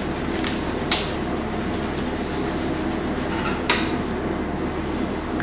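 A plastic sour-cream tub being opened and handled: a few light clicks and taps, about a second in and again a little before four seconds, over a steady hiss.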